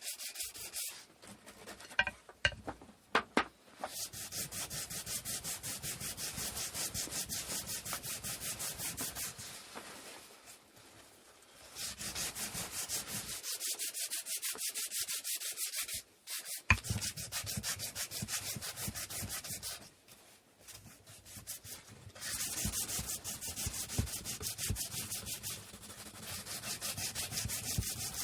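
Wood being hand-sanded with sandpaper in fast, even back-and-forth strokes. The strokes come in several runs of a few seconds each, with short pauses between them. There are a few light clicks near the start and one sharp knock about halfway through.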